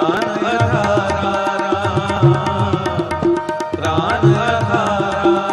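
Sikh kirtan accompaniment: harmonium carrying the shabad melody while tabla plays a steady, busy rhythm, the bass drum's deep strokes bending in pitch.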